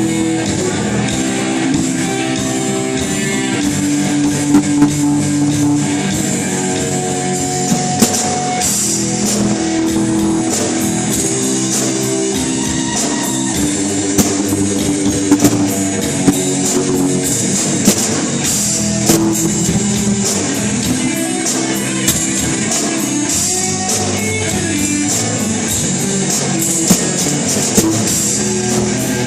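Live rock band playing through a sound check: guitar with bass and a drum kit, cymbal and snare hits cutting through at intervals.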